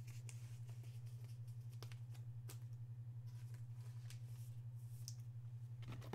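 Faint rustling and light clicks of a trading card being handled and slid into a clear plastic sleeve, over a steady low hum.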